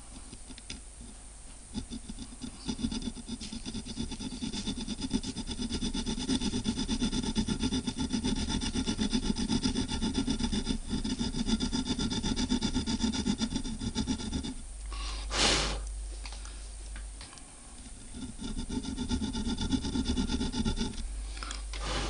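Rapid back-and-forth rasping of a small fine-toothed metal-working blade against a copper wire held in a bench vise. The strokes run steadily, stop for a few seconds with one short burst of noise, then start again.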